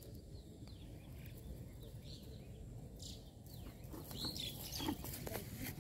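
Scattered bird chirps and short calls, livelier near the end, over a steady low rumble.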